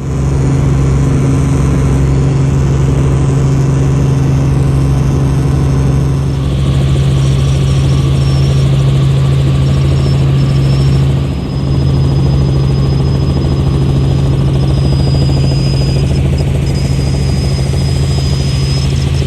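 Helicopter engine and rotor noise, a loud steady drone that dips briefly about eleven seconds in, with a thin high whine coming in during the second half.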